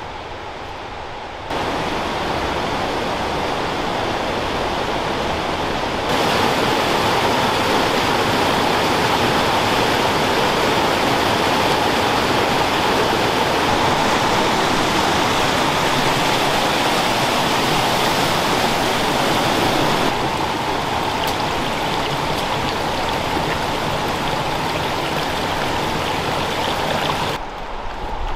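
Rushing mountain creek: a steady, loud rush of whitewater. It starts quieter, grows louder about a second and a half in and again about six seconds in, eases back about twenty seconds in and drops further near the end.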